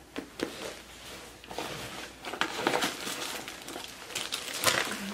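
Irregular rustling and crinkling of fabric and plastic packaging as small items are handled in a camera backpack, including a plastic-wrapped lens-cleaning item. The crackling gets denser near the end.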